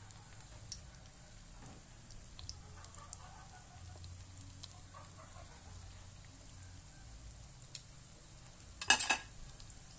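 Lumpia shanghai (chicken spring rolls) deep-frying in hot oil: a steady soft sizzle with faint scattered crackles. Near the end comes a brief loud clatter.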